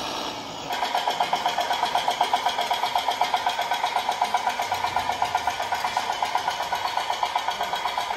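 Engine sound of an RC model tractor starting up about a second in, then a fast, even chugging like a diesel at idle.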